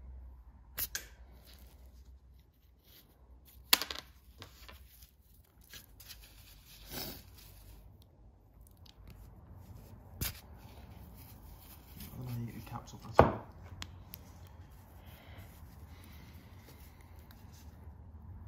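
A screwdriver blade prying and scraping old rubber seals off fuel injectors, handled in rubber gloves: a handful of sharp clicks and snaps with a short scrape in between, the loudest snap about thirteen seconds in.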